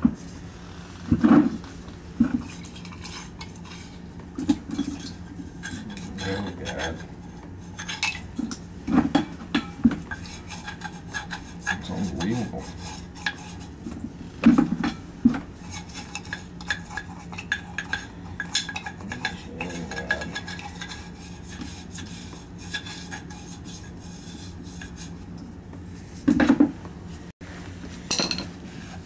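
Metal tools and fittings clinking, knocking and scraping at irregular intervals while an oil tank filter is being changed, over a steady low hum.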